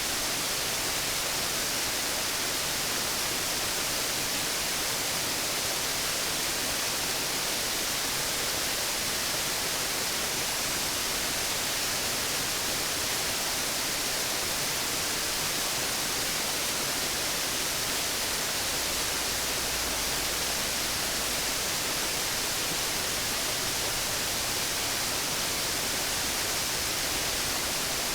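Waterfall rushing, a loud, steady wash of water noise that does not change.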